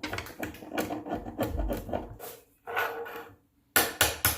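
Hand tool scraping hardened CA glue off a solid maple chair seat joint, in quick rasping strokes. Near the end the scraping stops and a few sharp knocks follow, louder than the scraping.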